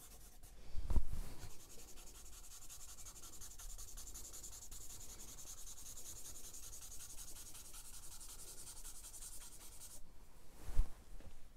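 Charcoal being rubbed and blended into drawing paper on a sketchpad, a steady dry scratchy hiss that stops about ten seconds in. There is a dull thump about a second in and another near the end.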